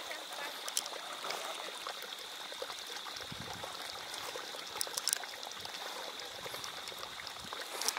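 Steady rush of flowing water, with a steady high whine and a few sharp clicks.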